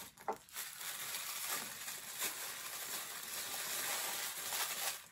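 Crinkling and rustling of thin packaging as a small toy part is unwrapped by hand, continuous and uneven.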